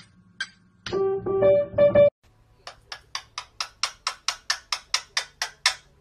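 A few short piano-like notes of a melody, then a rapid run of about a dozen sharp clicks or chirps, roughly four a second, growing louder before stopping.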